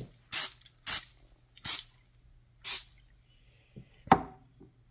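Aerosol cooking-oil spray can giving four short sprays, about half a second to a second apart, as the wrench is coated with oil. A sharp knock about four seconds in is the loudest sound.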